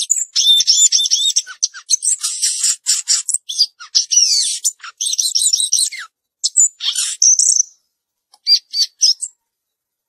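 Caged samyong garugiwa songbird singing a fast, varied song of high chirps, trills and sliding whistles. Near the end the song breaks into a few short, separate phrases.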